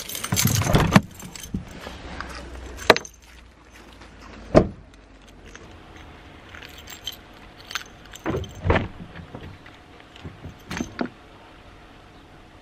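A bunch of car keys jangling as they are taken from the ignition, followed by a handful of scattered knocks and thumps from handling the car and its door.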